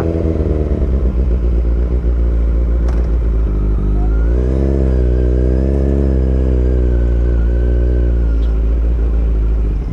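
Kawasaki Z900's inline-four engine running as the bike rolls at low speed, its note rising a little about four seconds in and easing off again near the end.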